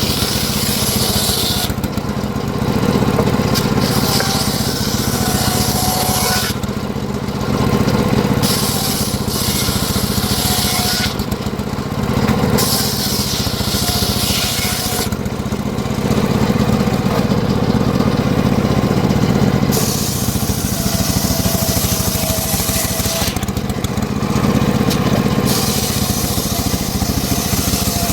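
Engine of a homemade circular sawmill running steadily, with a high hiss that comes and goes in stretches of a few seconds as the blade rips through mahogany.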